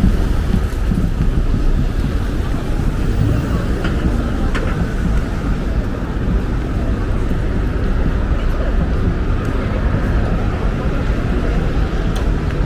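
Busy city street ambience: a steady low rumble of traffic, with the voices of passers-by talking.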